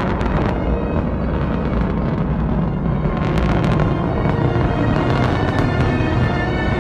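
Music, with orchestral tones coming in near the end, over the low rumble and crackle of a rocket lifting off. Sharp crackles come just after the start and again about three seconds in.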